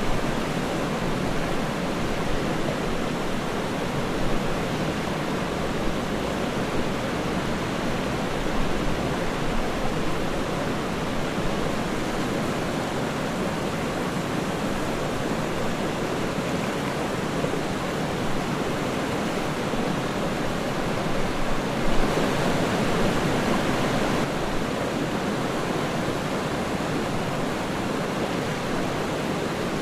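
Waterfall: water falling and splashing in a steady, dense rush, swelling a little for a couple of seconds about two-thirds of the way through.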